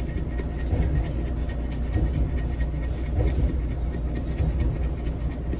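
Dry seasoning mix being sprinkled and rubbed over raw pork chops: soft rubbing and rasping with light ticks, over a steady low hum.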